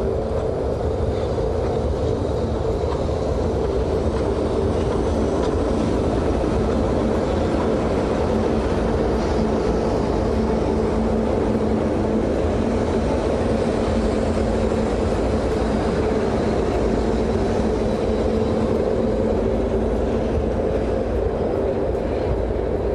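Pair of JNR EF63 electric locomotives running slowly past on the track: a steady hum over a low rumble of wheels on the rails.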